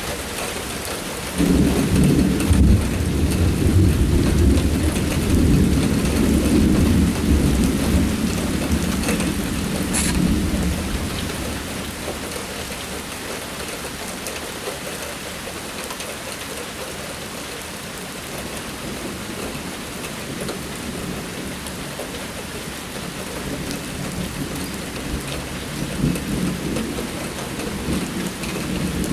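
Steady heavy rain, with a long rolling thunder rumble that breaks in suddenly about a second and a half in and dies away over about ten seconds; a second, weaker rumble of thunder builds near the end.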